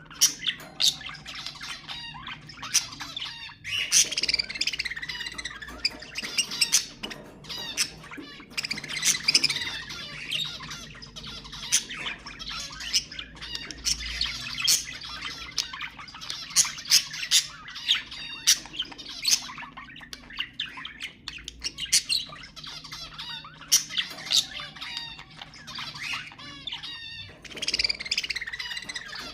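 Budgerigars chattering and warbling continuously, a dense mix of rapid chirps, squawks and clicks.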